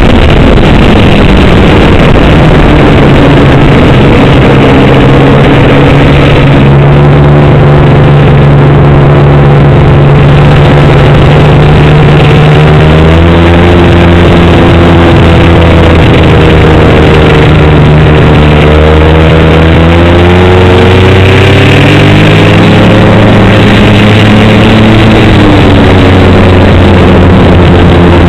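Snowmobile engine running under way, heard from the rider's seat, very loud throughout. Its pitch holds steady, drops about halfway through as the throttle eases, then climbs again a few seconds later.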